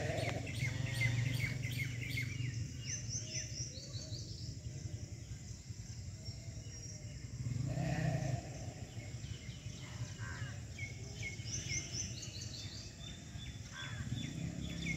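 Small birds chirping in quick bursts of short high notes over a steady low background hum. A brief, lower call sounds near the start and again about eight seconds in.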